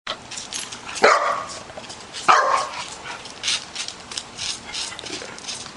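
A young boxer puppy barks twice, about a second in and again just over a second later. Faint scratchy clicks sound in between.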